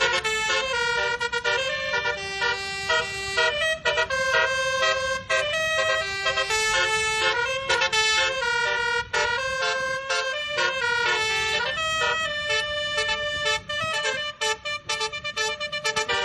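Nine-note basuri (telolet) multi-tone bus horn playing a melody of short and held horn notes that change pitch quickly, with brief breaks between phrases.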